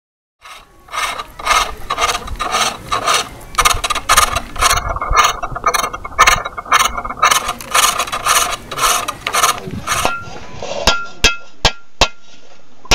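Wood being turned on a foot-treadle pole lathe: the cutting tool scrapes the spinning workpiece in a quick, even run of strokes. About ten seconds in this gives way to a few sharp hammer blows on a sheet-metal bowl, each with a short metallic ring.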